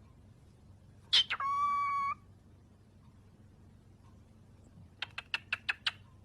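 Cockatiel calling: a sharp note about a second in that runs straight into a steady held tone lasting under a second, then near the end a quick run of about seven short, sharp chirps.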